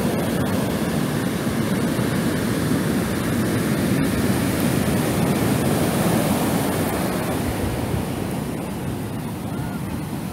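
Ocean surf washing on a sand beach: a steady rushing that eases slightly near the end.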